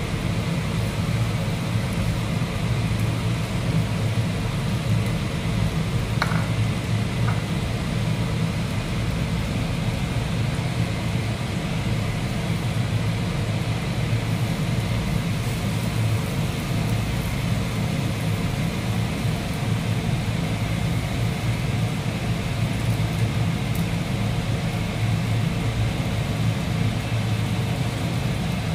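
Steady low mechanical hum, with two faint light clicks about six seconds in.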